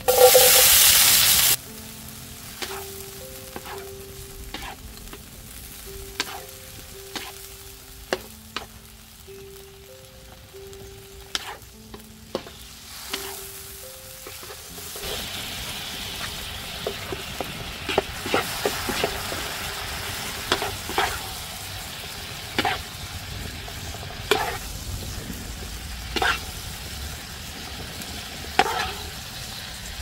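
Vegetables stir-frying in a hot wok: a loud burst of sizzling in the first second and a half, then a wooden spatula clacking and scraping against the wok while the food sizzles, the sizzle growing stronger in the second half. A simple background melody plays softly through the first half.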